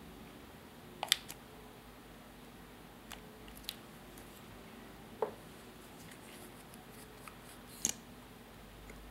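Small sharp clicks and taps of plastic makeup packaging being handled and opened: an eyeliner pen and a mascara tube. There are about half a dozen scattered clicks, the loudest about a second in.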